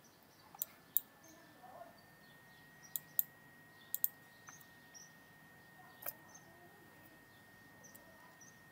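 Computer mouse clicks: a handful of sharp single clicks, some in quick pairs, spread over several seconds.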